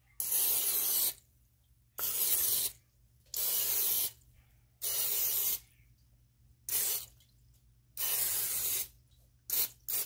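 Aerosol cooking spray hissing from its can in about eight short bursts, roughly a second apart, the last few briefer, as a metal muffin pan is greased.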